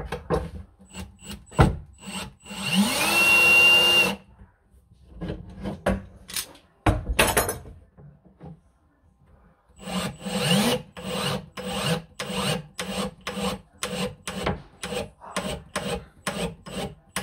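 A cordless drill spins up and runs for about two seconds, driving a screw into the wooden kitchen unit. Short sharp strokes on wood come before it, and a steady run of them follows, a little over two a second.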